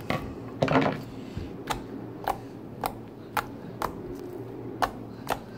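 Thin, jiggly slime packed with foam beads being squeezed and poked by hand, making short sharp pops and crackles about every half second, with a louder crackle just under a second in.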